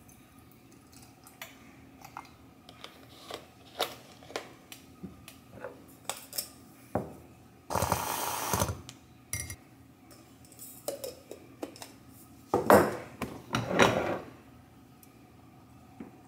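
Coffee being made at a stone countertop: a run of light clicks and knocks from a carton, cap and ceramic mug, then a handheld battery milk frother whirring in the mug for about a second. A louder, rougher burst of whirring and clatter follows a few seconds later.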